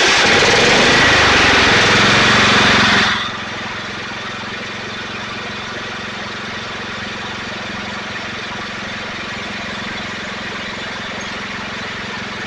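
John Deere LX255 lawn tractor engine running, loud for the first three seconds, then dropping suddenly to a quieter steady hum.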